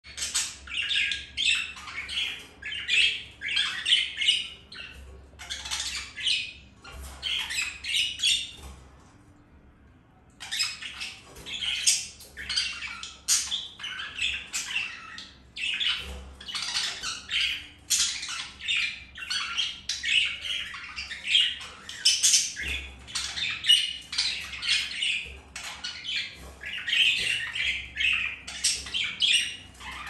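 Budgerigar chatter: a fast, unbroken stream of squawks, chirps and warbling, with one break of about a second and a half near a third of the way through.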